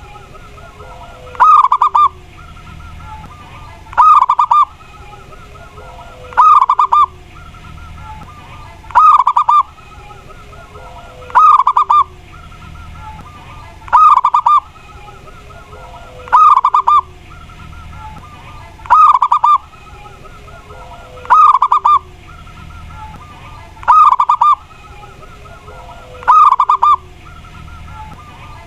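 Zebra dove (perkutut) cooing its song, a loud rapid phrase repeated about every two and a half seconds, with fainter cooing in between.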